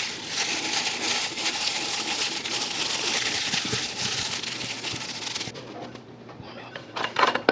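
A plastic-gloved hand squishing and turning raw fish fillets in egg and seasoning in a stainless steel bowl: wet squelching with crinkly glove noise that stops about five and a half seconds in. A couple of brief louder sounds follow near the end.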